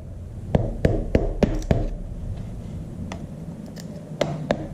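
Sharp hammer taps, about three a second, with a pause midway, driving a scraper into the joint of a tractor's rear axle bearing cap to split it loose from the axle housing.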